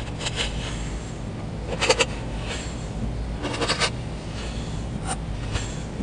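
Metal blade cutting through packed kinetic sand, the sand crunching and crackling as slices break away. Two louder crunching bursts, about two seconds in and just past the middle, with lighter crackles between them, over a steady low hum.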